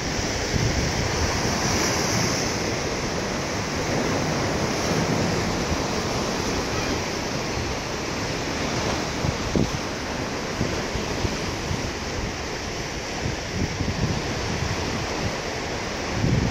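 Ocean surf washing steadily against the shore, with wind gusting on the microphone now and then.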